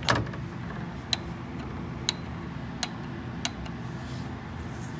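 Scattered sharp single ticks from a torque wrench on the oil filter housing socket, roughly one a second, with a louder knock right at the start, over a steady low background hum.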